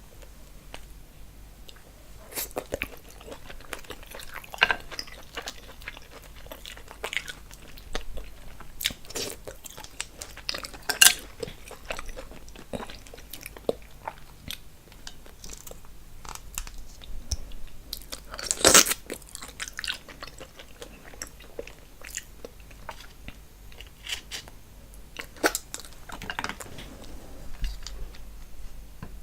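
Close-miked eating: irregular chewing and crunching with sharp, wet clicks from the mouth and food, seafood boil (shrimps, mussels, corn, potatoes) being eaten. A few louder cracks stand out, the loudest about two-thirds of the way through.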